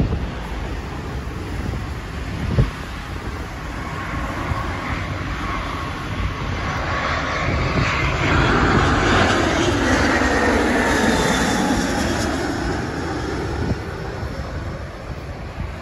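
British Airways Airbus A319 jet passing over on final approach: its engine noise, with a steady whine running through it, swells to its loudest about eight to twelve seconds in and then eases off. A brief knock comes about two and a half seconds in.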